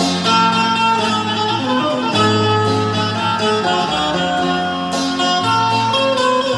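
Indian banjo (a keyed zither of the bulbul tarang type) played through an amplifier: a melody of plucked, ringing notes over lower held notes.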